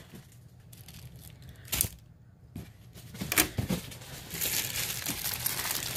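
Plastic packaging crinkling as plastic-wrapped wallets are handled, starting about halfway through. One short click comes a little under two seconds in.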